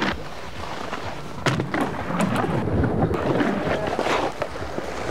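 Skis scraping over hard-packed snow, with a few sharp knocks and a low wind rumble on the microphone.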